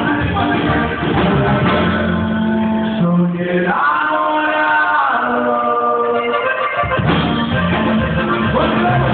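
Norteño band playing a corrido with singing. A few seconds in, the bass and drums drop out, leaving held sung or accordion notes, and the full band comes back in about seven seconds in.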